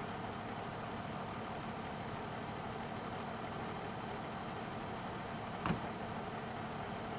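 Fire engine's diesel engine idling steadily at the roadside, with a single sharp knock about five and a half seconds in.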